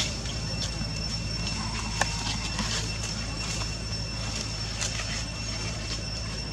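Steady low background hum with a thin, steady high whine, broken by a few faint ticks and clicks, the clearest about two seconds in.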